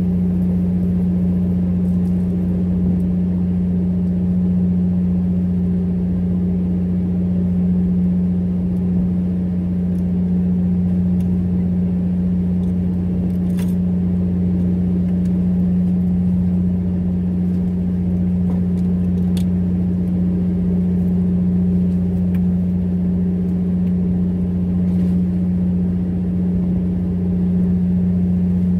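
Fishing boat's diesel engine running steadily, a deep, unchanging drone. A couple of faint clicks come through as reel parts are handled.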